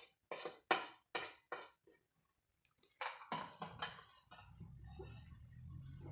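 Metal spoon clinking against a glass bowl while stirring dry gram flour and spices, about two or three clinks a second, stopping briefly, then a few more. From about two-thirds of the way in, a faint low steady hum comes in underneath.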